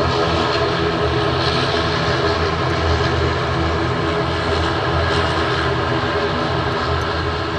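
Twin-turboprop airliner's engines and propellers running at high power as the aircraft rolls along the runway: a steady, loud drone made of many even tones.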